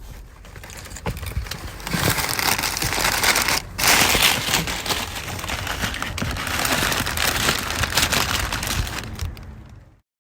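Packaging being handled, crinkling and rustling with dense crackles; the noise dips briefly a few seconds in and fades out just before the end.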